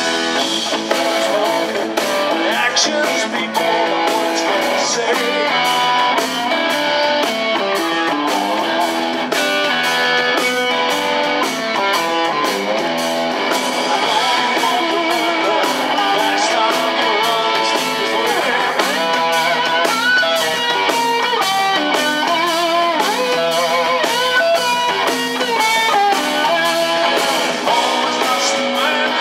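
Live electric blues band playing an instrumental passage: a Telecaster-style electric guitar leads with notes that bend and waver, over electric bass and a drum kit.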